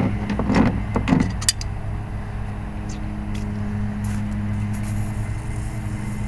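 Steady low machine hum, with a few brief voice sounds in the first second.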